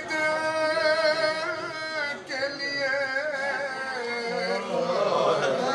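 A man singing a noha, an unaccompanied Urdu lament chant, with long held notes that waver in pitch and short breaks between phrases.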